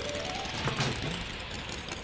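Cartoon sound effects for a small forklift climbing onto a flatbed trailer: the end of a rising run of notes, then a short thud with a bright swish about three-quarters of a second in. A steady low engine hum runs underneath.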